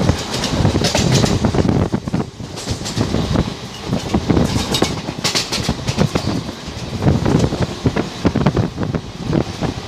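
Passenger train coach running at speed, heard from its open doorway: a steady rumble of wheels on the track with a rapid, irregular clatter of wheels over rail joints.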